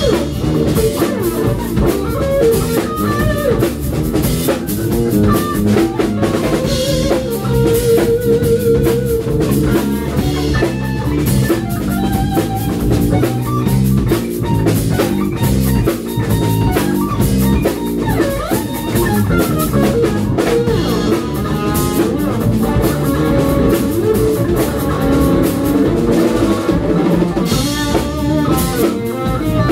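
Live funk-fusion band playing an instrumental passage: electric guitar over electric bass and a drum kit.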